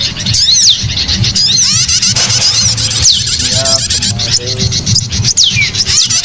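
Bird-lure call of many small songbirds chirping densely, with quick rising and falling whistled sweeps. A few lower, harsher calls come in about halfway, over a steady low hum.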